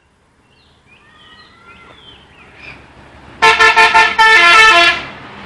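Telolet horn, a multi-tone musical vehicle horn, playing its tune loudly: a few quick toots and then a longer phrase that steps through several pitches, starting about three and a half seconds in and stopping near the end.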